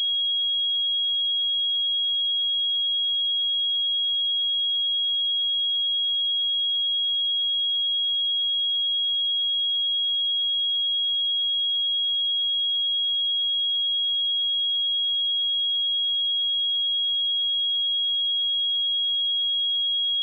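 A steady pure sine-wave test tone at 3297 Hz, a single high-pitched note held at constant level without change.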